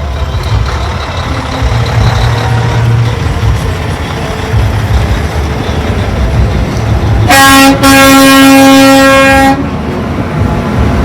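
A vehicle horn honks: a short toot about seven seconds in, then after a barely audible break a longer blast of nearly two seconds on one steady pitch, which cuts off sharply. Under it runs a steady low rumble.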